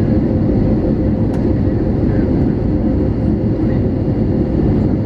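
Steady cabin noise inside an Airbus A320neo airliner: an even rumble of engines and airflow with a faint constant hum.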